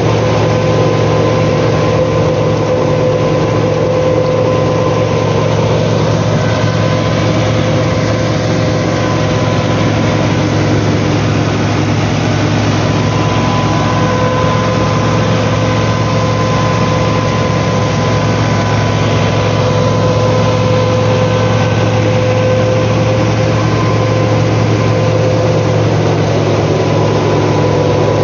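Massey Ferguson 375 tractor's diesel engine running steadily under load, driving a PTO-powered wheat straw chopper that cuts stubble into chaff and blows it through its spout. A steady hum with a high whine on top, unchanging throughout.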